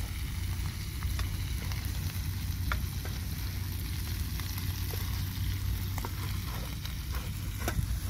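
Eggs sizzling in a frying pan on a portable gas burner, stirred with a wooden spatula that clicks and scrapes against the pan now and then. A steady low rumble runs underneath.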